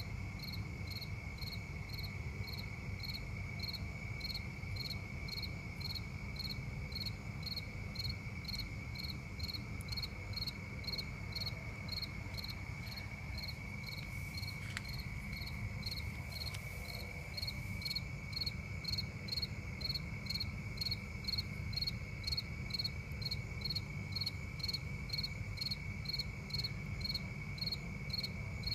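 Night insects: crickets chirping in a regular pulse about twice a second over a steady high-pitched trill, with a constant low rumble underneath.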